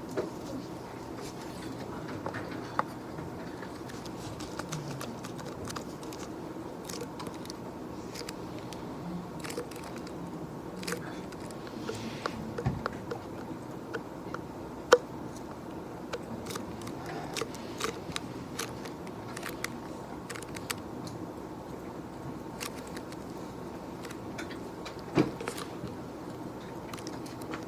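Scattered small clicks and taps of objects being handled at an office desk, at irregular intervals, over a steady office room hum.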